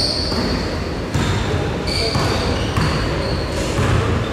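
Basketball being dribbled and bounced on a hardwood court during play, with sneakers squeaking briefly on the floor near the start and again about two seconds in.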